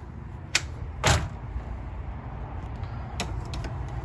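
A stuck travel-trailer entry door being worked open: the latch and handle clack and knock, loudest about a second in, with a few lighter clicks a little past three seconds, over a steady low rumble.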